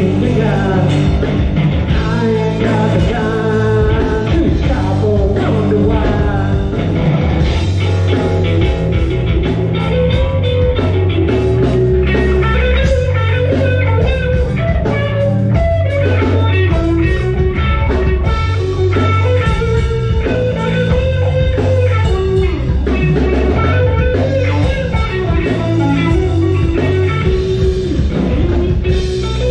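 A live rock band playing amplified electric guitars over a drum kit.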